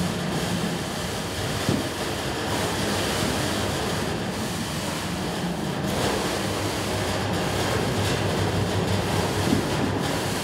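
A push broom scraped up and down a corrugated metal wall as a sound-art performance, making a steady, dense rushing noise.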